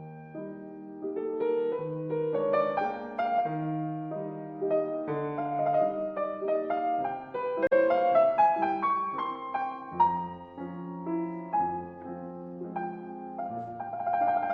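Background music: a calm piano piece playing melody and chords.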